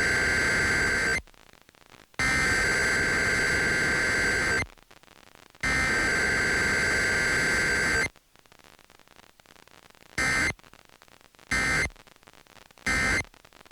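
Emergency Alert System SAME digital header: a harsh, buzzing data burst about two and a half seconds long, sent three times with a second of silence between (the first already under way and ending about a second in). After a pause of about two seconds come three short end-of-message bursts of the same buzz, closing a Required Weekly Test.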